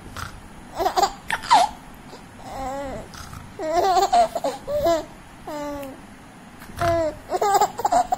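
Baby babbling and laughing in short high-pitched bursts with brief pauses between.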